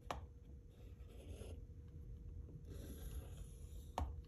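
Faint pencil scratching on paper, in two short strokes, as it traces around a metal lid used as a circle template. A click just after the start and a sharper click about four seconds in.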